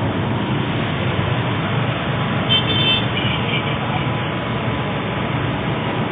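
Busy road traffic: a steady rumble of engines and tyres, with a vehicle horn tooting twice in quick succession about halfway through.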